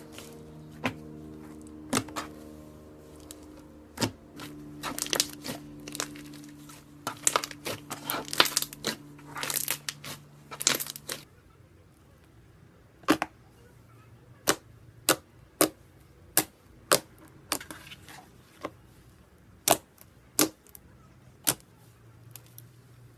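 Slime being poked, pressed and stretched by hand, giving sharp clicking pops and crackles, crowded together in the first half and then spaced out singly about every half second to second. Faint background music runs under the first half and stops about halfway through.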